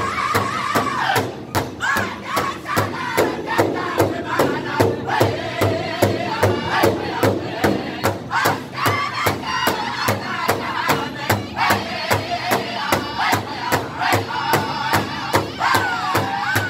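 A Northern-style powwow drum group singing high-pitched, in unison, over a large hide powwow drum that several drummers strike together in a steady, even beat of about two to three strikes a second.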